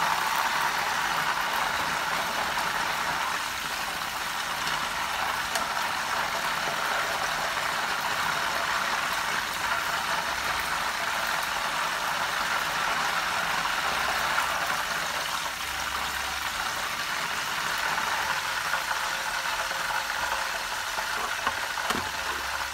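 Hot oil sizzling steadily in a wok as whole pigeons are shallow-fried, a continuous even hiss.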